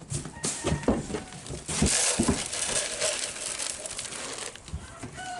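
Dry rustling and crinkling with a few scattered knocks, densest from about two seconds in until just before the end.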